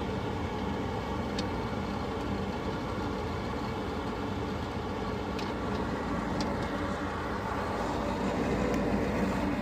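Goodman GPH14 gas pack furnace running steadily after being fired, a constant mechanical hum of its motors and burner. A few faint clicks occur about a second and a half in and again around five and six seconds in.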